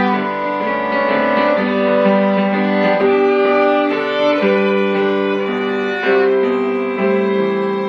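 Two violins and a Yamaha electronic keyboard playing together: long bowed notes over sustained piano chords, changing every second or two.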